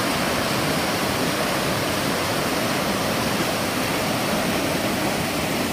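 Whitewater rapids rushing steadily down a rock chute in a creek: a loud, even noise of churning water.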